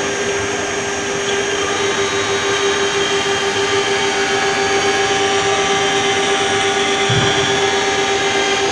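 High-speed engraving spindle of a CNC wood lathe running with a steady whine while its small bit carves a flower pattern into a turned wooden column, over a constant rushing noise.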